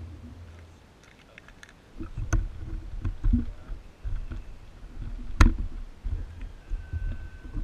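The last of the quadcopter's motor hum fades in the first second. Then come low, uneven thuds and knocks close to the microphone as a person in sandals steps up beside the grounded drone, with one sharp click about five seconds in.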